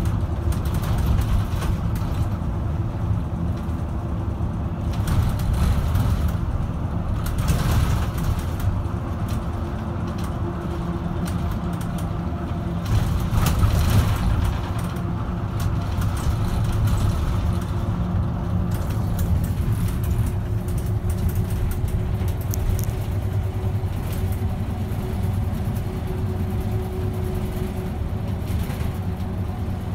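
Bus engine and tyre-on-road noise heard from inside the cabin while driving, a steady low hum.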